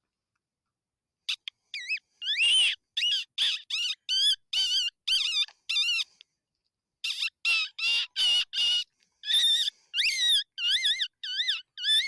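Predator fox-call squeaker blown in a rapid series of short, quavering high-pitched squeals, the kind of call that imitates a distressed rabbit to lure foxes in. The squealing starts about a second in, breaks for about a second around the middle, then carries on.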